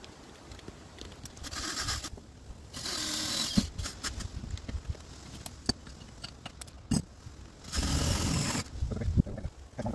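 Power drill running in three short bursts of about a second each, drilling the pilot hole through a boat's livewell lid, with light knocks and clicks between the bursts.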